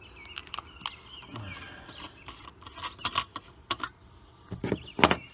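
Plastic coolant reservoir cap being twisted off by hand to check the coolant level: a run of small clicks and scrapes, with two louder knocks near the end.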